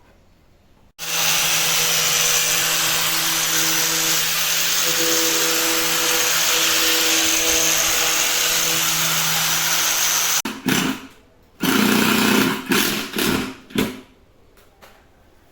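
An electric power tool runs steadily for about nine seconds, then comes on in several short bursts.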